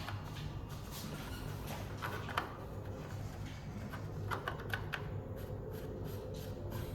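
A bottom bracket cup being fitted by hand into a carbon frame's bottom bracket shell: scattered small clicks and light scraping of metal parts, a few sharper ticks near the middle, over a low steady hum.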